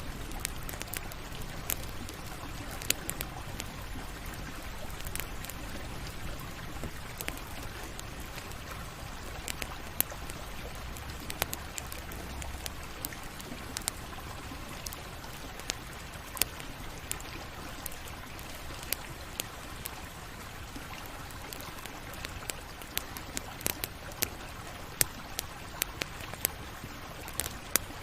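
Campfire burning and crackling: irregular sharp pops and snaps over a steady hiss, with a low rumble that fades out about halfway through. The pops come thicker near the end.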